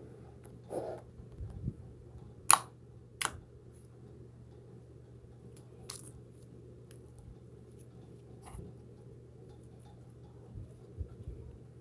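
Slime being squeezed, folded and stretched by hand, giving a few sharp clicking pops, the loudest about two and a half seconds in, over a low steady hum.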